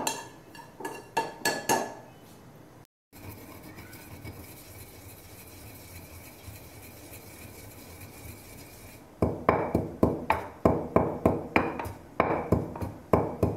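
A metal spoon clinking and scraping through cumin seeds dry-roasting in a nonstick frying pan. Then, after a quiet stretch, a wooden pestle pounds the roasted cumin in a stone mortar at about three strikes a second, crushing it coarsely.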